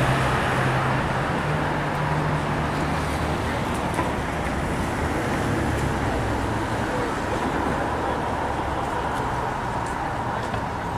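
Steady road traffic noise with a vehicle engine humming, its low tone fading in and out, and faint voices in the background.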